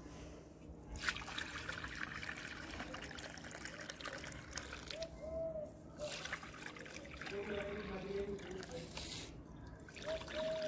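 Water poured from a plastic bucket into shallow unglazed clay bowls, trickling and splashing as each bowl fills. It comes in three spells, broken by short pauses about a second in, about six seconds in and near the end.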